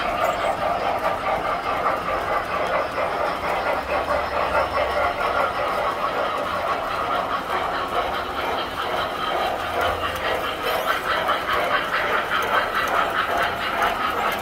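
Tinplate toy electric train running on metal track: a steady rattle of its wheels and motor.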